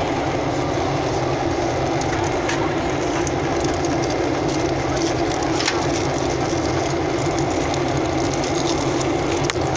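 Steady engine and airflow noise heard inside the passenger cabin of a Boeing 737-800 in flight, with its CFM56 turbofans running. A single brief click sounds near the end.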